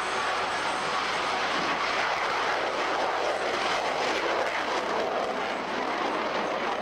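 Military jet flying past, its engines a steady rushing noise that swells slightly midway.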